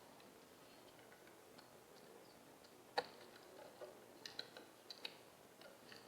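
Sharp clicks and taps of a bird pecking at seed in a feeder: one loud click about three seconds in, then a quick run of smaller clicks.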